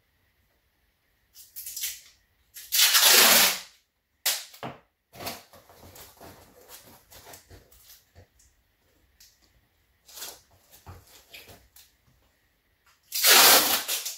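A cardboard box being closed and sealed: two long ripping pulls of packing tape off the roll, about a second each, one near three seconds in and one near the end, with paper and cardboard rustling and handling knocks between.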